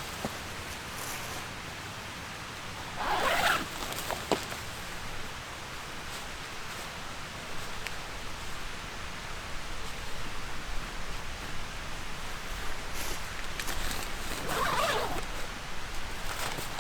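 A zipper pulled twice, about eleven seconds apart, each pull a short rasp of under a second, over a steady background hiss.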